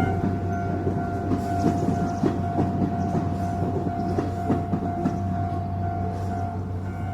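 An Iyotetsu Takahama Line train passes over a level crossing, its wheels clacking over the rail joints above a low rumble. The crossing's electronic warning bell keeps ringing as a steady tone throughout.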